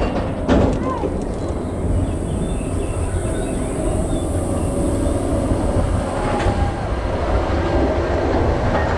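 Expedition Everest roller coaster train running along its track: a loud, steady low rumble with clattering wheels and a few sharp knocks in the first second. A faint thin wheel squeal comes in after about six seconds.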